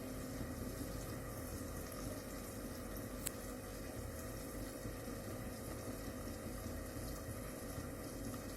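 Faint steady sizzling and hiss of marinated chicken sticks cooking on a covered tawa over a low gas flame, with a single small click about three seconds in.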